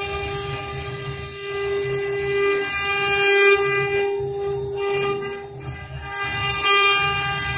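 Four-spindle CNC router running, its spindles giving a steady high whine with overtones, over a low pulsing rumble and a hiss of cutting that swells and falls as the bits work through the dusty slab.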